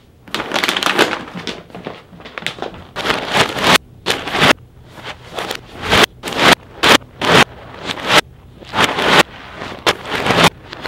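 Plastic pet food and treat bags crinkling and rustling as they are handled and gathered up, in a run of irregular loud bursts.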